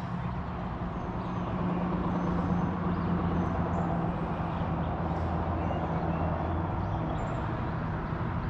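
Steady low engine drone over a rushing noise, growing louder about one and a half seconds in.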